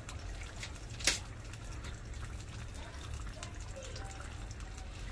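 Masala-coated tongue fish (sole) fillets frying in hot oil in a pan over a wood fire: steady sizzling with scattered crackles and pops, one sharp pop about a second in, over a low steady rumble.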